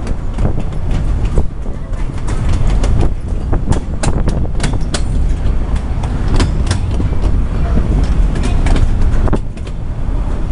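Narrow-gauge tourist train running along, heard from a passenger car: a steady low rumble with many irregular sharp clicks and clacks from the wheels and car.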